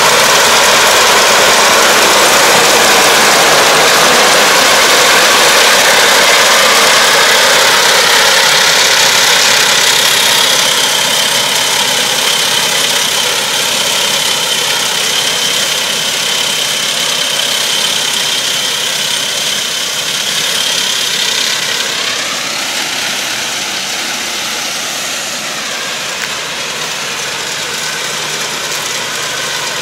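Yanmar tractor engine running as it pulls a round baler through rice straw. It is loud close by, then grows quieter in two steps, about ten seconds in and again a little past twenty seconds, as the tractor works away.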